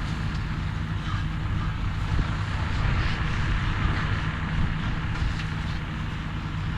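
A vehicle engine running steadily, a low drone with a noisy rumble over it.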